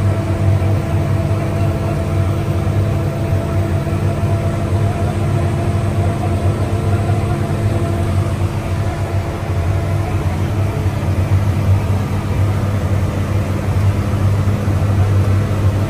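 Self-propelled sprayer's engine running steadily as it drives across a hillside, heard inside the cab as an even, low hum.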